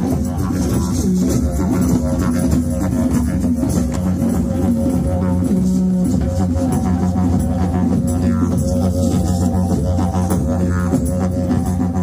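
Didgeridoo playing a steady low drone, with many hand drums beating along in a group rhythm.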